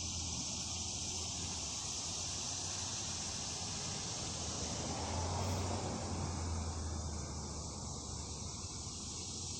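Steady high-pitched chorus of insects, crickets or cicadas, buzzing without a break, over a low steady rumble.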